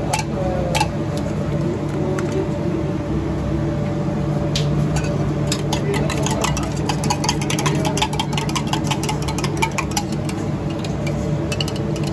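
A metal spoon clinking rapidly against a steel tumbler as an egg and chicken mixture is beaten in it. The clinking starts about four seconds in and runs over a steady low mechanical hum.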